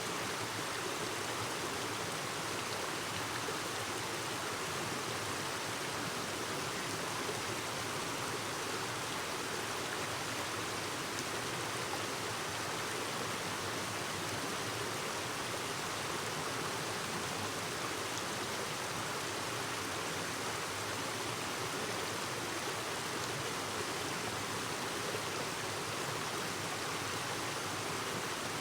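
Clear mountain stream babbling: water running steadily over rocks.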